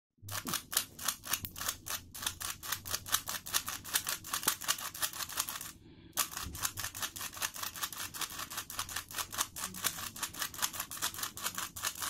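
Rubik's cube being turned fast in the hands during a solve: rapid plastic clicking of the layers turning, several clicks a second, with a brief pause about six seconds in.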